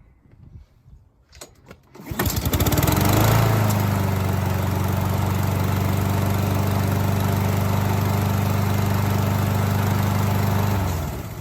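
Honda push mower's single-cylinder four-stroke engine pull-started: it catches about two seconds in and runs steadily, firing properly now that the straightened valve cover no longer holds the intake valve open. It cuts out near the end.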